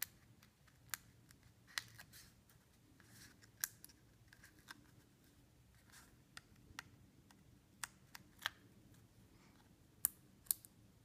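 Foam adhesive dots being picked off their plastic backing sheet: faint, scattered sharp clicks and ticks of the sheet and fingers, with a couple of louder clicks near the end.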